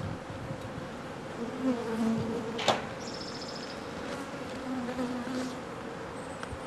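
Honeybees from a captured swarm buzzing close by, with individual bees humming past now and then. A single sharp click comes about a third of the way in.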